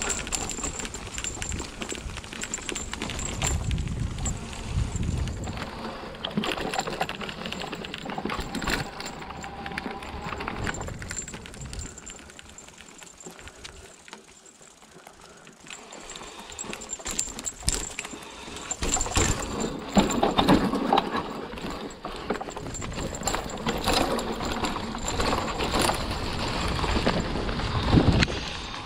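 Hardtail e-mountain bike rolling fast down a dry trail: tyres crunching through fallen leaves and the bike clattering over roots and bumps, with rumbling wind on the microphone. It eases off for a few seconds midway, then grows louder with heavier knocks.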